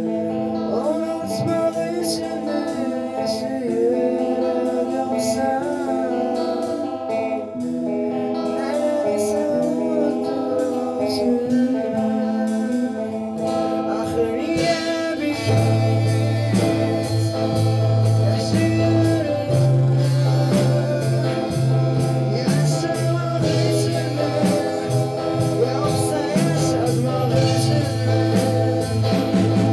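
Rock song from a rough band demo: singing over electric guitars. About halfway through, bass and steady drums come in and the sound gets fuller.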